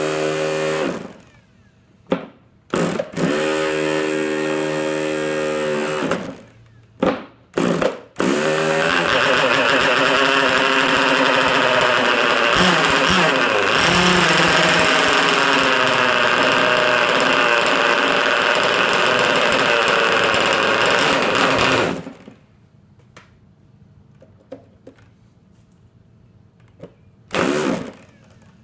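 Handheld electric starter spinning over a K&B 11cc (0.67 cu in) two-stroke nitro glow outboard in several short tries. About nine seconds in, the engine catches on 50% nitro fuel and runs loud for about thirteen seconds with a wavering pitch, then cuts off suddenly. Near the end the starter spins briefly once more.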